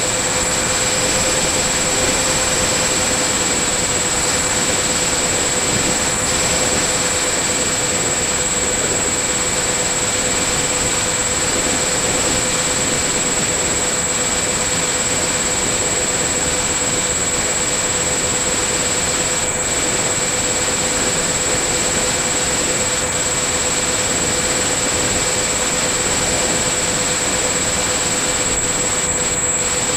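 Electric motor and propeller of a radio-controlled model plane running steadily, heard from its onboard camera: a steady whine over a rush of air noise.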